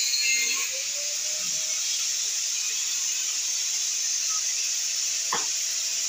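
Angle grinder's abrasive disc cutting through the steel housing of a refrigerator compressor: a steady high grinding hiss over a faint motor whine, with one sharp click near the end.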